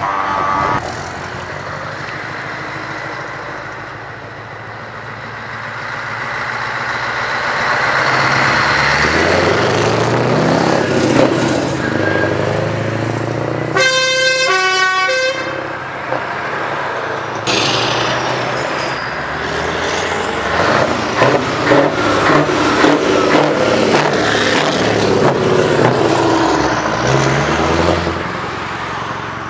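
Heavy truck diesel engines revving hard through loud exhaust pipes. A multi-note truck air horn blows for about a second and a half about halfway through, and near the end there is rapid, choppy revving.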